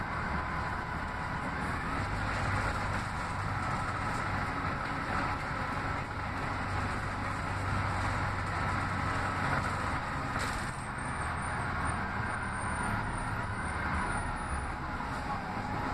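Inside an Orion VII CNG city bus under way: the steady drone of its natural-gas engine and road noise, with a faint whine that drifts slightly in pitch. A brief click comes about ten and a half seconds in.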